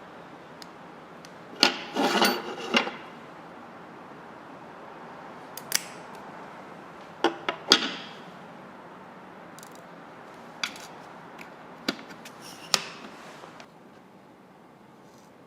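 Small metal tools and pieces handled on a jeweller's bench: scattered light clicks and taps, some in quick clusters, over a steady low hiss.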